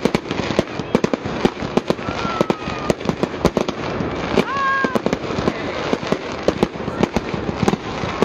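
Aerial fireworks bursting overhead: rapid, irregular bangs and crackling with no pause. Two short high whistles come in the first half.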